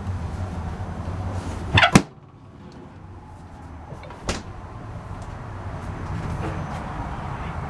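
A door or cupboard shutting with a sharp double clack about two seconds in, over a steady low hum that drops away sharply after it and slowly builds back; a single knock follows a couple of seconds later.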